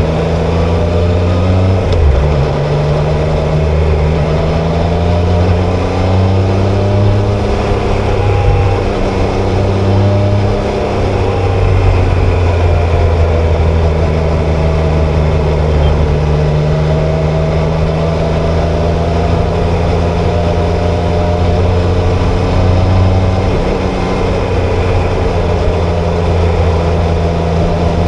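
Triumph Tiger Sport 660's three-cylinder engine pulling the motorcycle along on the road. Its pitch rises and falls with the throttle, with a few brief breaks where gears change.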